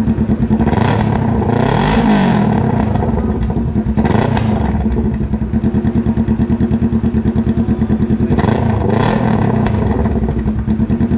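Kawasaki Ninja 650 parallel-twin engine idling through an Austin Racing full exhaust, blipped up in revs three times and falling back to idle between blips.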